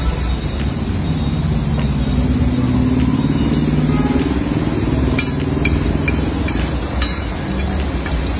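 A low motor-vehicle engine drone that rises and falls in pitch, over egg gravy sizzling on a large flat iron griddle. A few sharp clicks come in the second half.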